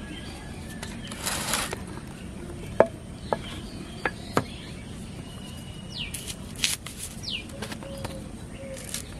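A few sharp clicks and taps as small spice pieces are cut and trimmed against a boti's curved iron blade, with a short rustle about a second in. Birds give two quick falling chirps in the background.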